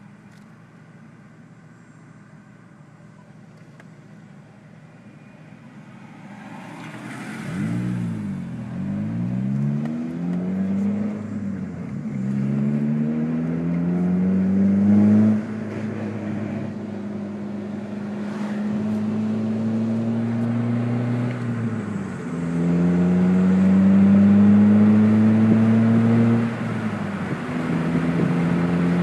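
2002 Ford Focus being driven: a low hum at first, then from about seven seconds the engine pulls away, its pitch climbing in stretches and dropping back at each gear change. A few short knocks sound over the engine.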